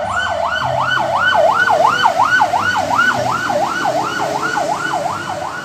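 Fire truck siren in a fast yelp, its pitch sweeping up and down about three times a second.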